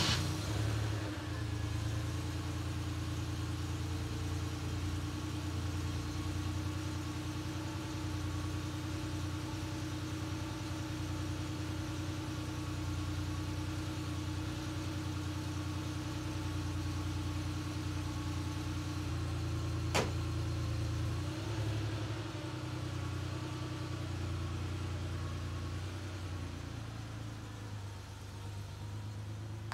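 Air-cooled 3.2-litre flat-six of a Porsche 911, with a freshly rebuilt top end, idling steadily after a cold start. A single sharp click sounds about twenty seconds in.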